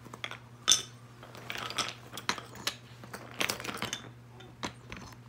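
Painted wooden toy blocks clacking and knocking against one another as they are picked up and set down: a scatter of short, sharp knocks, the loudest just under a second in.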